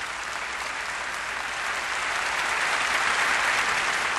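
A lecture-hall audience applauding, the clapping growing louder toward its peak about three seconds in.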